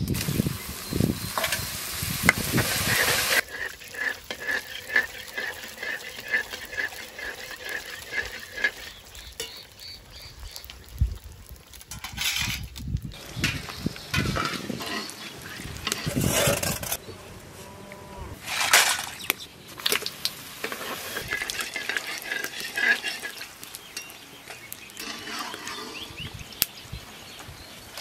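Fuchka (pani puri) dough rounds deep-frying in very hot oil in a kadai: a loud sizzle as they drop into the oil, then bubbling as they puff, with further bursts of sizzling about halfway through as more are turned and stirred with a metal skimmer.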